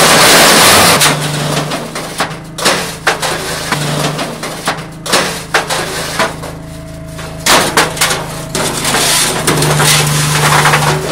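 Concrete paving stones clattering and knocking against one another and the metal table as they are pushed by hand into the form of an MHM stone slider paving machine. It opens with a long rush of stones sliding off the tipped hopper, and the machine's motor hums steadily underneath.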